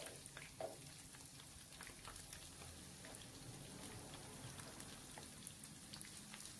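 Chicken pieces shallow-frying in hot oil in a pan: a faint, steady sizzle with scattered small pops and crackles.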